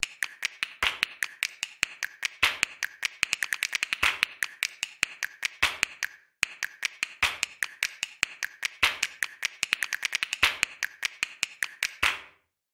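A rapid, uneven series of sharp clicks or taps, several a second, with a short break about six seconds in.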